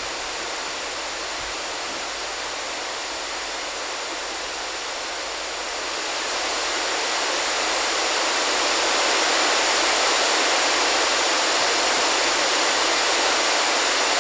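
Pink noise through a JBL 2446 compression driver on a 2380A horn, the high-frequency section alone, so a steady hiss with no bass. It grows louder from about six seconds in, then holds steady.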